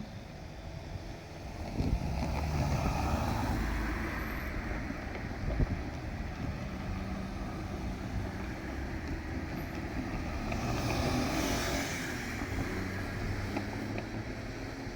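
Diesel railcar engine running as the train moves, a steady low rumble that grows louder about two seconds in, with a rush of higher hiss near the two-thirds mark.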